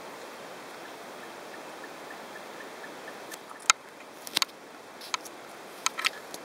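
Steady outdoor hiss with a faint, fast ticking for a couple of seconds, then a handful of sharp clicks in the second half, the sound of the camera being handled.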